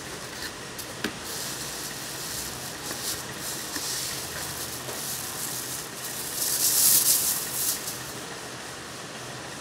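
Plastic shoe wrapping rustling and crinkling as a shoe is lifted out of a cardboard shoebox, with a short knock about a second in and the loudest crinkling in the second half, over a steady background hiss.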